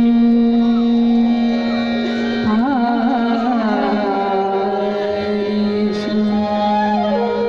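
A woman singing Indian classical-style vocal music with harmonium accompaniment: a long held note, then ornamented gliding, wavering phrases about two and a half seconds in, over a steady sustained tone.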